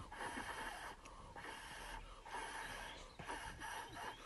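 A person breathing out in several breathy puffs of air, roughly one a second.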